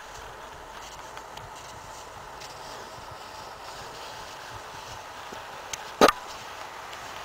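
Faint, steady outdoor background hiss, with one short sharp thump about six seconds in.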